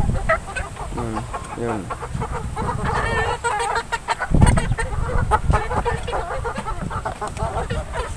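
Gamefowl chickens clucking in short, repeated calls, with rustling and knocking from the camera being carried, and a low thud about four seconds in.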